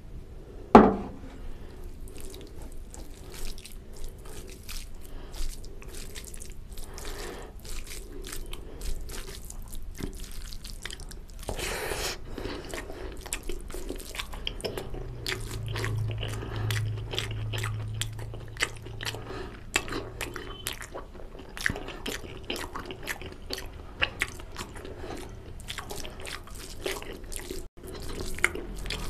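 A hand squishing and mixing basmati rice with mutton curry gravy on a metal plate: wet, sticky squelches and many small clicks of fingers against the plate. There is one louder knock about a second in.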